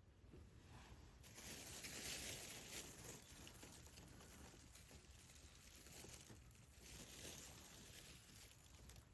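Wood campfire burning, a faint hiss with scattered small crackles and pops, swelling louder for a couple of seconds near the start and again briefly later.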